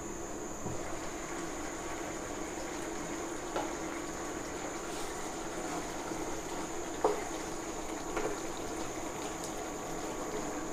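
A pan of elephant foot yam curry simmering with a steady bubbling hiss. It is being stirred with a wooden spatula, with a few short knocks against the pan. The loudest knock comes about seven seconds in.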